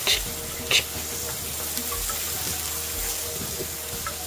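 Fajita steak sizzling on the grate of a charcoal grill, a steady hiss with two short, louder hisses in the first second.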